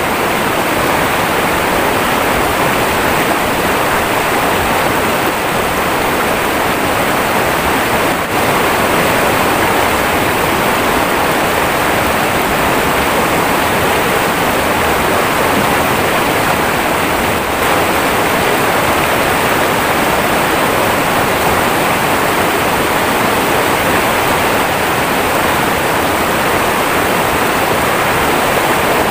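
Fast, shallow river water rushing over rocks in a small rapid close by: a loud, steady rush of white water.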